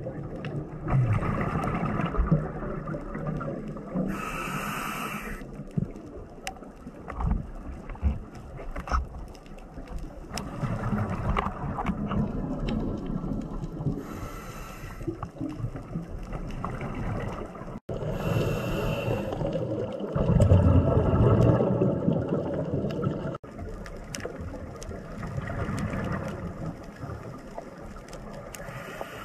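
Scuba diver breathing underwater through a regulator: a short hiss of inhaled air every several seconds, then the low gurgling rush of exhaled bubbles.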